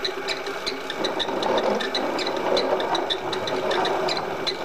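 Milling machine running an end mill slowly through a bore in a lathe apron: a steady machine and cutting noise with a regular light ticking about four times a second.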